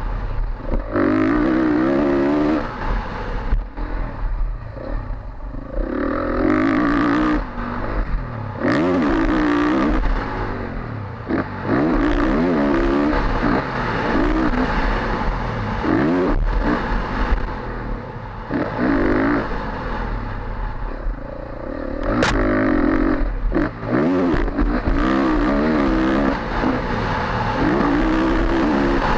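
Dirt bike engine heard from on the bike as it is ridden on a motocross track, revving hard and backing off again and again. The pitch climbs through each burst of throttle and drops in the short lulls between them.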